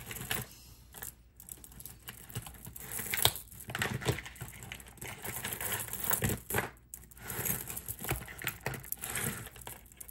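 Tangled beaded necklaces being handled and pulled apart: beads clicking and rattling against each other in small irregular bursts, with rustling.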